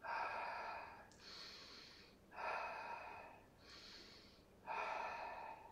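A man breathing deeply and audibly in and out in a steady, paced rhythm, the controlled breathing of a Pilates exercise. Three louder breaths alternate with two fainter ones, about one every second and a bit.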